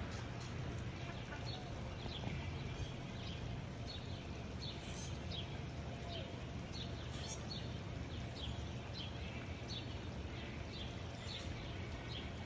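Ducklings peeping: many short, high, falling chirps, a few each second, over a steady low rumble.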